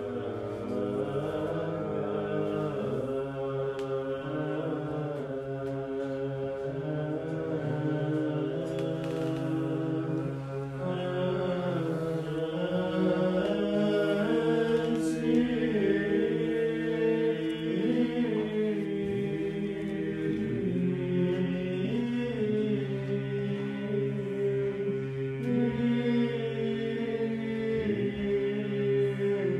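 Orthodox monastic chant: men's voices singing a slow melodic line over a steady held drone note (ison), in the manner of Byzantine chant.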